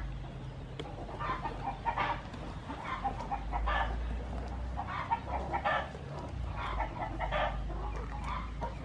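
Chickens clucking in a running series of short calls, roughly one every half second to a second, over a low steady background hum.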